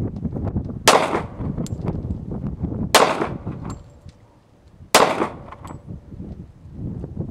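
Springfield Armory XD-40 pistol firing three single .40-calibre shots about two seconds apart, each cracking and then trailing off briefly, with wind rumbling on the microphone.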